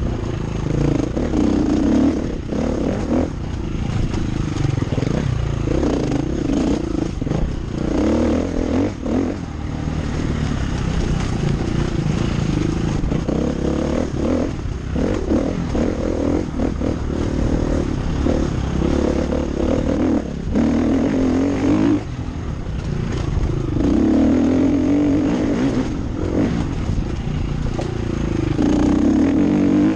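KTM EXC 350 four-stroke single-cylinder enduro engine, rising and falling repeatedly as the rider opens and closes the throttle.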